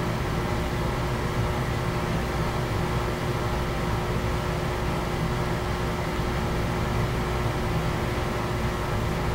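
Steady machine hum with hiss and a faint constant tone, even throughout, with no rhythm or sudden sounds.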